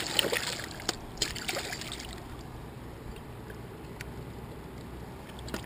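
Water splashing and trickling among the rocks at the river's edge for the first second or two as a freshwater drum is grabbed in the shallows, then a steady low rush of river water with a few faint clicks.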